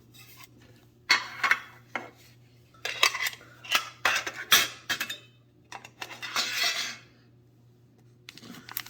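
Small metal Pokémon mini tin being handled, its lid and body clinking and scraping in several short bursts.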